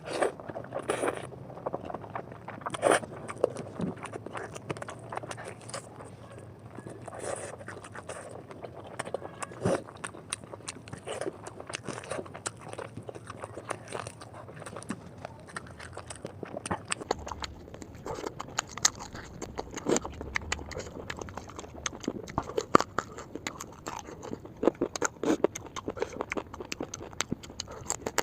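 Close-miked eating of noodles: wet chewing and mouth noises with many irregular small clicks and smacks, and occasional scraping.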